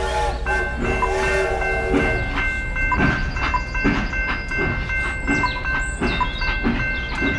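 Battery-operated toy steam locomotive running along plastic track: a low motor hum with a regular clicking beat, and a steady chord of high tones held from about half a second in.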